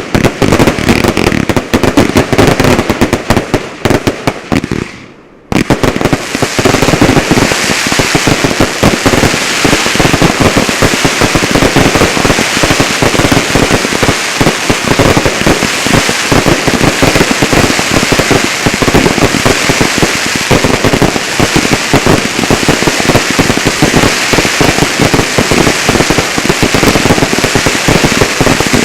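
Fireworks barrage: a dense, continuous run of rapid bangs and crackle. It breaks off briefly about five seconds in, then resumes and keeps going.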